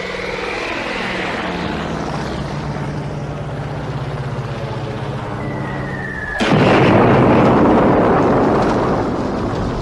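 Aircraft engine drone, its pitch falling as it passes, then a short falling whistle and a sudden loud bomb explosion about six and a half seconds in that rumbles away over the next couple of seconds.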